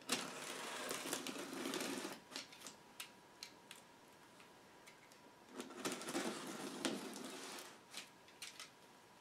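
A knife cutting through the packing tape and cardboard of a shipping box: two scraping cutting strokes of about two seconds each, with scattered clicks and taps between them.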